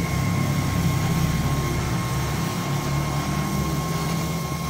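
Electric welding on a car's exhaust muffler joint: a steady crackling buzz from the arc over a constant low hum.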